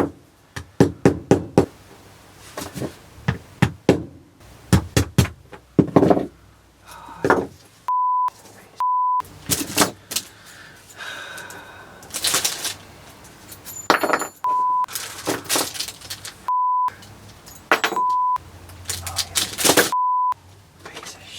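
Knocks and clanks of parts and tools being worked by hand, broken up by about six short, steady censor bleeps over swearing.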